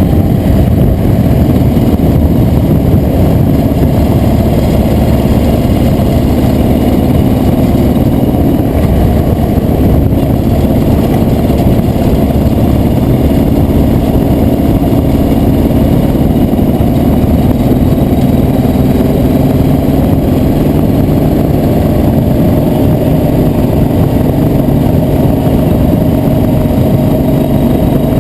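A vehicle engine running steadily while under way, with a slow rise in pitch near the end.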